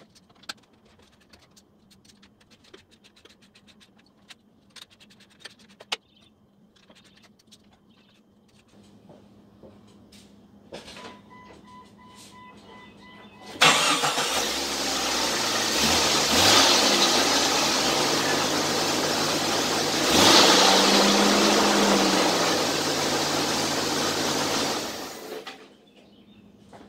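Faint clicking, then a short run of beeps. After that the 1999 Jeep Cherokee XJ's engine cranks and starts about halfway through, runs with a brief rev, and is switched off near the end. The engine is run to check the newly tensioned serpentine belt.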